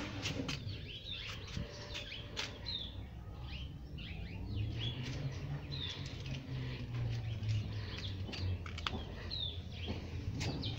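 Small birds chirping, short high falling notes repeated every second or so, with scattered light rustles.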